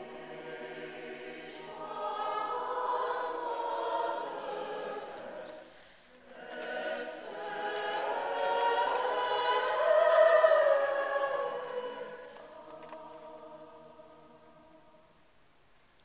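Mixed choir singing unaccompanied in sustained chords. A phrase swells and breaks off briefly about six seconds in, then a second phrase builds to its loudest point around ten seconds in and dies away to almost nothing near the end.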